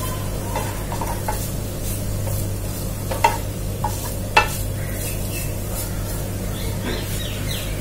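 Wooden spatula stirring and scraping grated coconut around a nonstick pan, with a few sharp knocks of the spatula against the pan, the loudest about three and four and a half seconds in. A steady low hum runs underneath.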